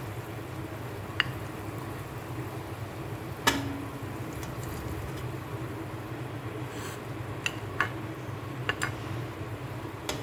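Cooking spoon knocking and clinking against a metal pot and a plate as pieces of roasted mutton are dished out: a handful of sharp clicks, the loudest about a third of the way in with a short ring, over a steady low hum.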